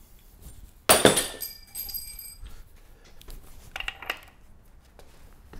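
A metal engine part set down on a hard metal surface: one sharp clink about a second in that rings for over a second, then a few lighter metal-on-metal clinks.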